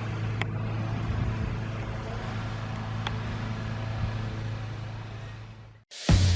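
Steady low mechanical hum over a hiss, fading out about five seconds in. After a moment of silence, music starts just before the end.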